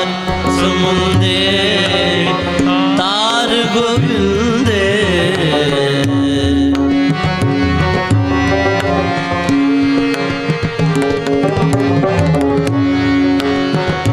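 Sikh kirtan in Raag Basant: a singer's ornamented vocal line over harmonium drone and tabla. The voice stops about halfway through, and the harmonium and tabla carry on alone.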